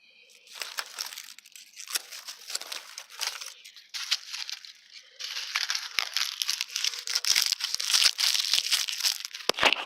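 Dry leaves crunching and rustling, a dense crackle of many small snaps, getting louder and busier about halfway through.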